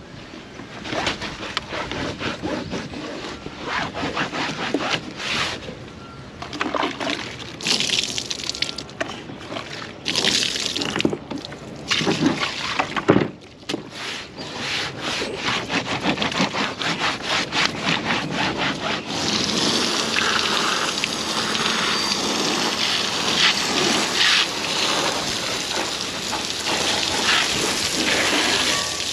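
Soapy towel scrubbing and wiping a plastic kayak deck and its rubber mats in uneven strokes, with a sharp knock about halfway through. About two-thirds of the way in, a hose starts spraying water steadily over the kayak's hull and trailer.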